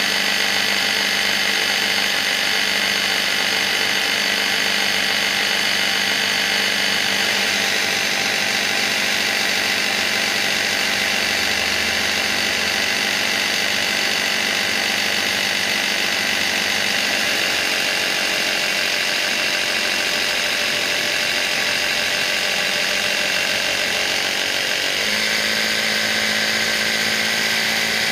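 Brookstone 12-volt air compressor running steadily under heavy load, pumping a bottle to about 185–190 psi. About 25 seconds in, its note steps slightly higher as the drive cog shears off and the motor runs on without load.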